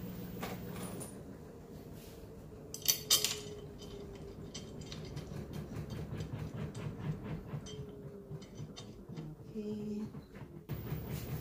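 Light metallic clinks and ticks of screws and spacers being handled and threaded into a metal mounting plate, with a couple of sharper clicks about three seconds in.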